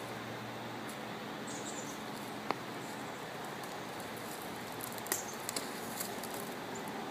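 Steady faint outdoor background hiss, with one sharp click about two and a half seconds in and a few smaller clicks about five to six seconds in.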